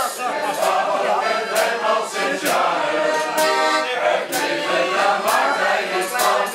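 A group of voices singing a song together to accordion accompaniment, with a sharp tap on the beat about once a second.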